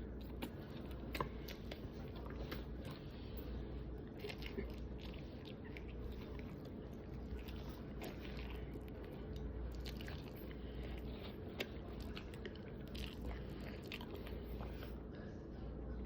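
A person chewing and biting food close to the microphone, with many small irregular clicks and mouth noises over a steady low hum.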